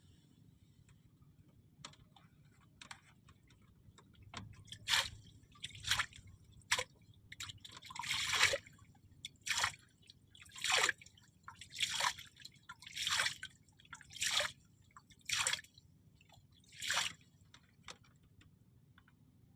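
Water splashing in a series of short, sharp splashes, about one a second for some twelve seconds.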